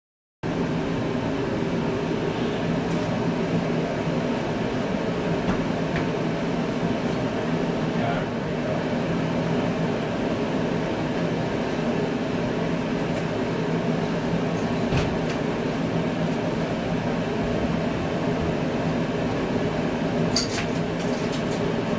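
1961 Buick's 401 Nailhead V8 running at a steady idle, an even rumble.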